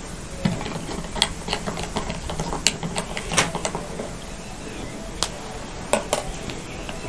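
Plastic measuring spoon clicking and tapping against a plastic beaker as baking soda is stirred into water, a quick irregular run of clicks. Near the end come a couple of separate taps as the spoon is set down on the table.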